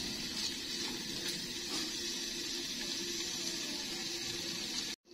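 Boneless chicken strips sizzling gently in oil in a cast-iron frying pan after their cooking water has boiled off, a steady soft hiss over a faint low hum. It cuts off suddenly near the end.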